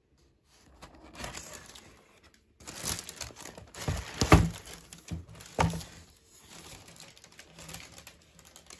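Tissue wrapping paper crinkling and rustling as a cardboard shoe box is opened and a hand rummages inside and lifts out a sneaker, with two louder bursts of handling about four and five and a half seconds in.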